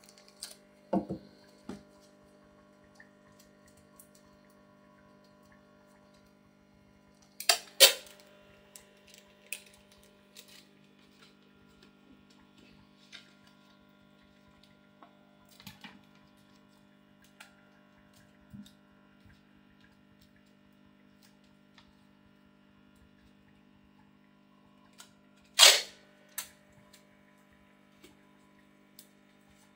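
Plastic aquarium background sheet being handled and clear sticky tape pulled off the roll and pressed on, making scattered crackles and short rips. Two are louder, about a quarter of the way in and near the end. Under it runs a steady low electrical hum.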